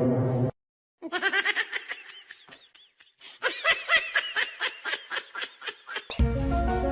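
Rapid, high-pitched laughter in a quick series of short pulses for about five seconds. A sustained tone cuts off just before it, and music comes in near the end.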